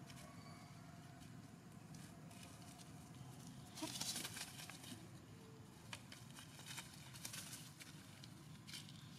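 Faint outdoor background hum, broken about four seconds in by a short, louder burst of rustling, followed by scattered soft clicks and crackles.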